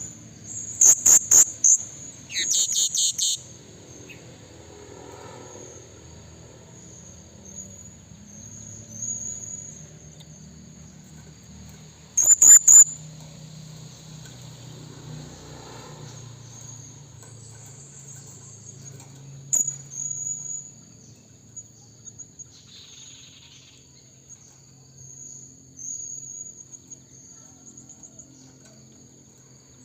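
Blue-crowned hanging parrot (serindit) giving short runs of shrill, high-pitched calls: a quick series about a second in, another just after, a pair about twelve seconds in and one near twenty seconds. Under them runs a steady high insect trill.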